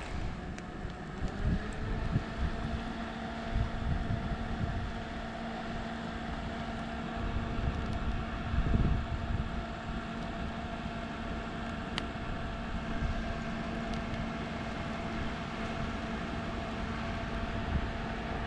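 A motor running steadily, its pitch rising about a second and a half in and then holding, with wind buffeting the microphone and a single sharp click about twelve seconds in.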